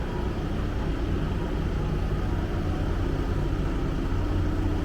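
Forklift engine running steadily with a low, even drone while the sawmill section is held and positioned.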